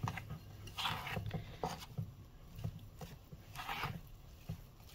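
A utensil stirring and scraping stiff flour dough against the side of a ceramic mixing bowl, in soft, irregular scrapes and light knocks.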